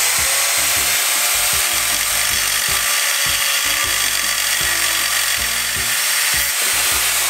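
Handheld angle grinder with a cut-off disc slicing through a metal rod clamped in a vise, a steady, loud grinding hiss from the disc biting into the metal.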